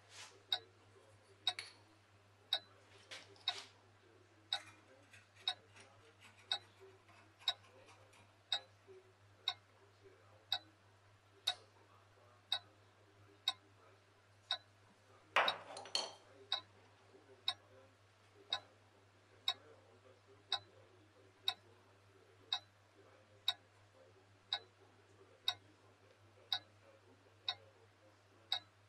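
A clock ticking steadily, about once a second. About halfway through, a brief scraping rustle of handling at the bench is louder than the ticks.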